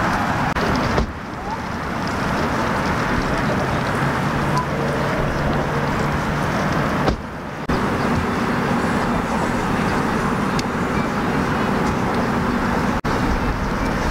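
Steady outdoor background noise with a low rumble, like distant road traffic, dipping briefly about a second in and about seven seconds in and cutting out for an instant near the end.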